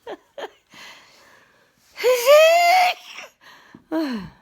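A woman sneezing: a breathy build-up, then one loud, high-pitched voiced sneeze about two seconds in, followed by a shorter falling vocal sound near the end.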